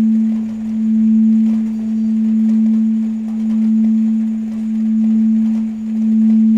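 Tibetan singing bowl sounding one sustained low tone with a faint higher overtone. Its loudness pulses in slow, regular swells about every second and a quarter.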